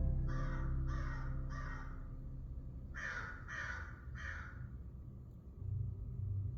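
Crow cawing: two runs of three harsh caws, about a second and a half apart, over a low rumble that fades away. A low hum comes in near the end.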